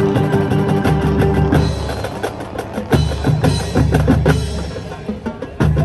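High school marching band playing its halftime show: low brass holding chords over drum and percussion hits. The low chords drop out twice, leaving mainly sharp percussion strokes, and the full band comes back in strongly near the end.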